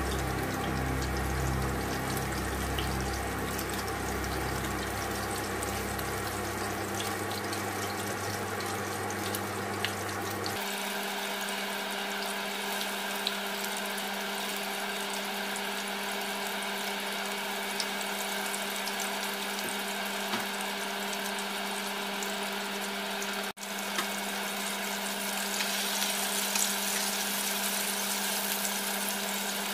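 Water boiling in pots on a stove: a steady rushing, bubbling noise over a constant hum. The sound changes abruptly about ten seconds in and drops out for an instant about two-thirds of the way through.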